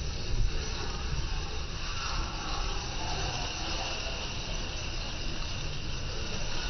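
Water rushing and splashing along the side of a moving boat's hull, a steady hiss over a low rumble.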